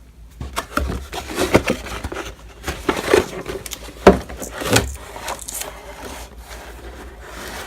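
Retail Windows XP Home Edition box being opened and its contents handled: irregular rustling and scraping of cardboard and paper with several sharp knocks. It is busiest in the first five seconds and quieter after.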